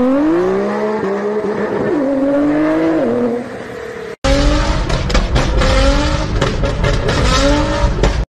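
Nissan GT-R's twin-turbo V6 exhaust under hard acceleration, the pitch climbing and dropping back at each upshift. After a sudden cut, a GT-R's engine is heard accelerating at speed from a following car, under loud rushing wind and road noise with sharp crackles.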